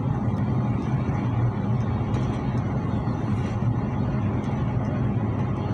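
Steady low rumble and noise of trains on the move, heard from inside a passenger carriage as a high-speed train slides past on the adjacent track, with a few faint ticks.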